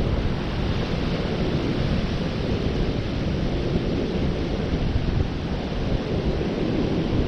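Strong wind blowing across the microphone, a steady low rumble, with surf breaking on the beach behind it.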